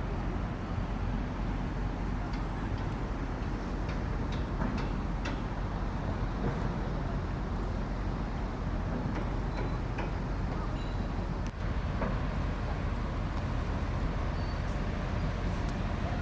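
Steady outdoor din of road traffic, a low rumble with a few faint clicks.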